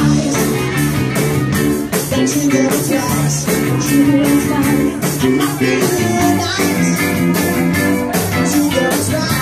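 Live cover band playing an upbeat rock song with a steady beat.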